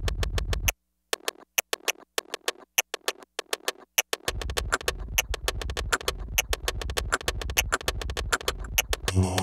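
Electronic track built on a sampled drum-kit rudiment solo: rapid snare strokes throughout. A deep bass drops out about a second in and comes back near the middle. A sustained synthesizer chord enters near the end.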